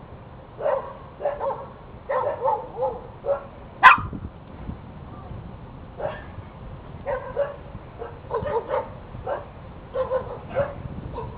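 A dog barking over and over in quick runs of short barks, with one sharp, louder crack about four seconds in.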